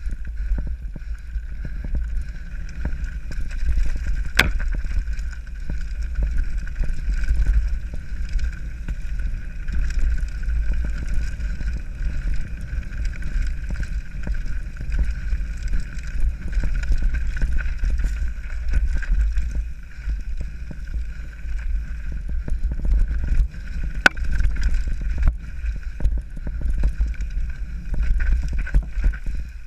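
Mountain bike riding fast down a rocky dirt trail, heard from a camera on the rider: heavy wind rumble on the microphone with the bike rattling and clicking over the stones, and a sharp knock about 4 seconds in and another about 24 seconds in.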